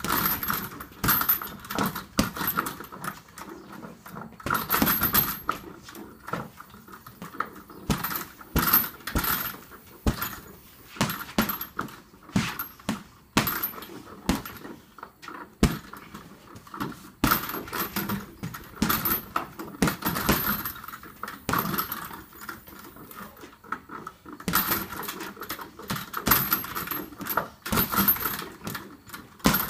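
Boxing-gloved punches landing on an Everlast heavy bag in runs of quick blows with short pauses, the bag's metal hanging hardware jingling with each hit.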